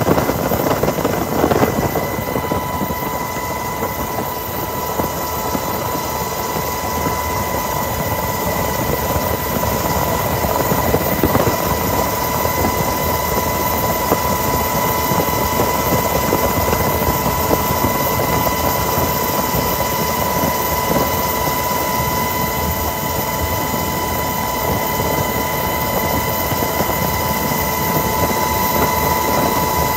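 Helicopter cabin noise heard from inside: the steady din of the rotor and engines, with a steady high-pitched whine over it.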